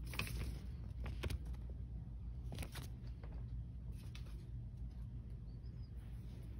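A steady low hum with a few short rustles and clicks of objects being handled.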